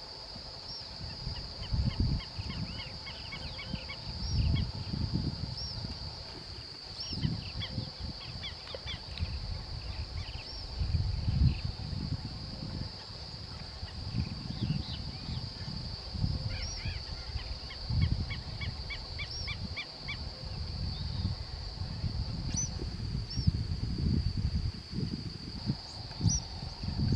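Rural outdoor ambience: a steady high-pitched insect drone, with birds calling in runs of quick chirped notes several times. Low gusts of wind buffet the microphone throughout.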